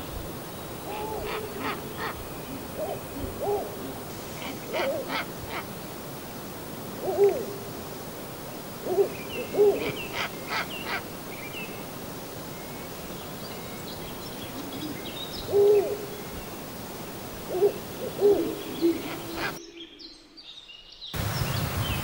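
An owl hooting: about a dozen short hoots, some in quick pairs, spaced irregularly over a faint steady hiss. Light high clicks come between them.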